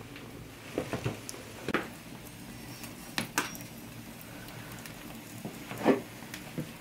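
Scattered crackles and light knocks from a wood fire burning in an open hearth, with a louder knock of the iron salamander near the end as it is lifted from the fire.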